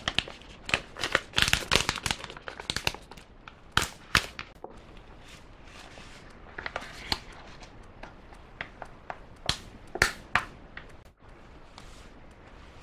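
Plastic seasoning sachets crinkling as they are handled, torn open and squeezed to shake out the powder: a rapid run of sharp crackles in the first few seconds, then scattered ones, with a few louder crinkles around ten seconds in.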